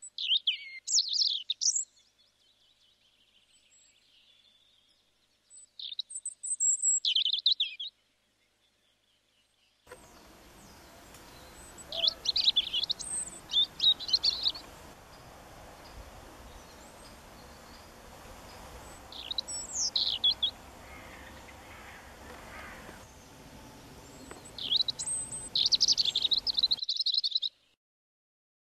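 A songbird singing in separate short phrases, each a second or two long, with pauses between them; for the latter part a faint steady outdoor hiss lies under the song.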